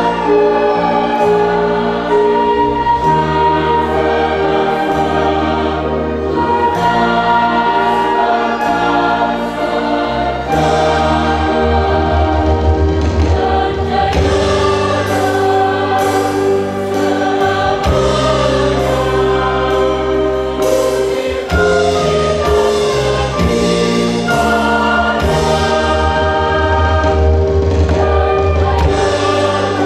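Mixed choir singing a hymn in sustained, slow-moving chords, accompanied by an ensemble of brass, violins, bass guitar, keyboard and drums.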